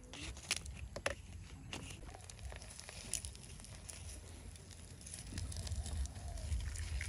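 Banana-leaf parcel being pressed and shifted on glowing charcoal: scattered sharp crackles and leaf rustles over a faint low rumble.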